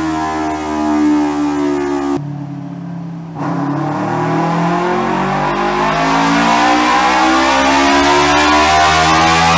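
Kawasaki Ninja 250 FI parallel-twin engine with a full-system aftermarket exhaust, run on a chassis dyno. It holds steady revs, drops off abruptly for about a second, then pulls with revs climbing steadily to the end.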